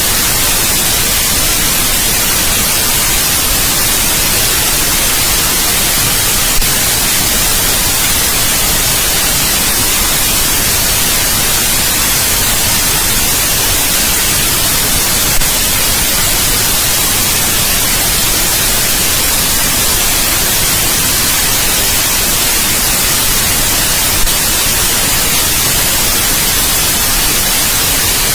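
Steady white noise: an even, unchanging hiss across all pitches, strongest in the high end. A faint click shows three times.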